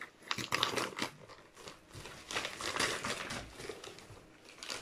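Plastic packaging bag crinkling and rustling in irregular spurts as a child's hands pull it open and rummage inside.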